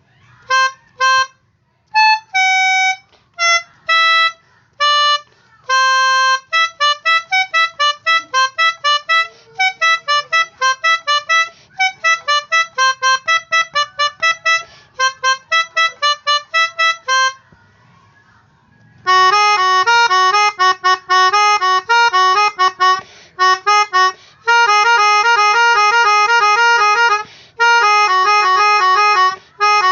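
Basuri electronic telolet horn set to its pianica voice, playing short reedy tunes: single notes at first, then quick runs of notes. After a pause of about a second and a half a little past halfway, it plays fast, repeated note patterns.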